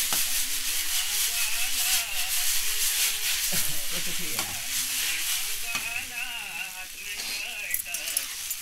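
Chow mein noodles sizzling in hot oil in a frying pan, with a metal spatula stirring and scraping them and making small clicks.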